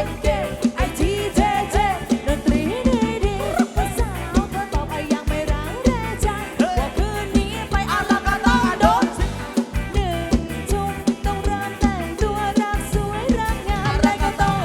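Thai rot hae band music played live: a fast, steady drum beat under a melody line that bends and slides in pitch, with singing.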